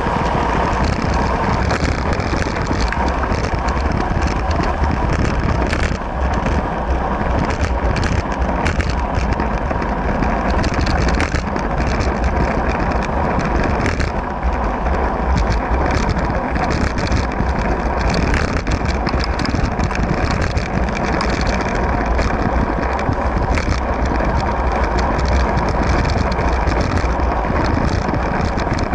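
Steady rushing noise of a bicycle ride on asphalt: wind buffeting the camera microphone over tyre noise, with a few short knocks from bumps in the path.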